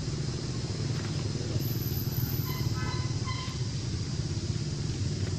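Steady low rumble of outdoor background noise, with a short high-pitched chirping call about two and a half seconds in.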